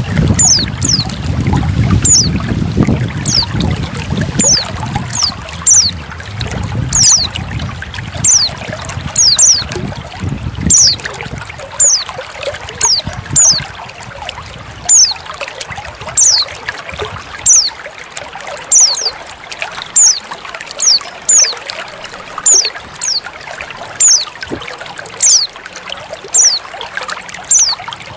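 Water trickling and splashing, with a female white-eye (pleci) giving short, high, falling call notes about once a second. The heavier low splashing eases off about ten seconds in.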